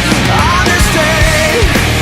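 Loud, heavy rock music with distorted guitars and driving drums.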